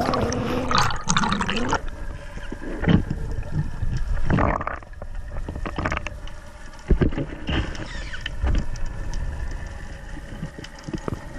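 Underwater camera sound of a freediver swimming: muffled rushing and gurgling of water around the housing, with a few dull knocks.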